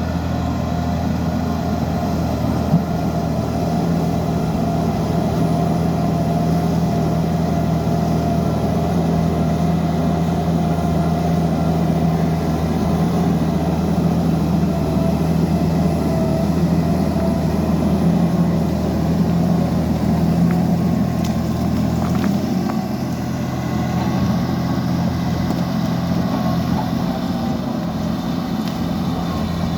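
Liebherr PR 754 crawler dozer's diesel engine running steadily, with a steady higher whine over the low engine drone. The lowest part of the drone eases off about 22 seconds in.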